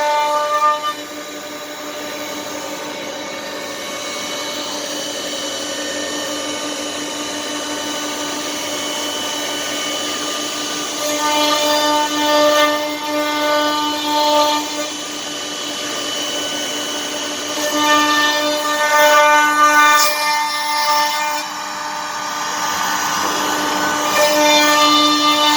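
CNC wood router spindle whining steadily at a high, even pitch, growing louder and richer in three stretches as it cuts into the wood.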